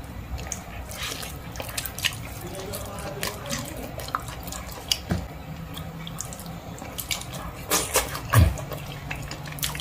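Close, wet chewing and lip-smacking of a person eating cooked goat-head skin with the hands: a steady string of moist clicks and smacks, the loudest a little after eight seconds in.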